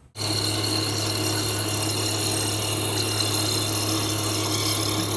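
Tormach PCNC 1100 CNC mill's spindle running with an end mill cutting a hole in a metal bracket: a steady machining noise with a low hum and a high whine.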